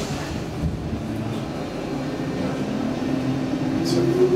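Stockholm Metro C14 train pulling away from a station, heard from inside the car: a low whine from the traction motors that begins to rise steadily in pitch as the train accelerates, over the rumble of the car. A brief hiss near the end.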